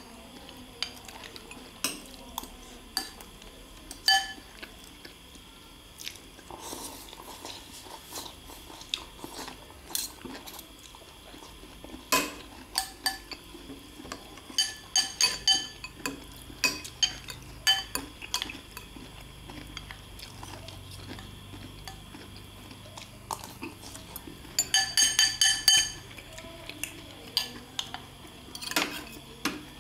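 Metal spoons and forks clinking and scraping against ceramic bowls as food is scooped, in scattered ringing taps. There is a quick run of rapid clinks about halfway through and another near the end.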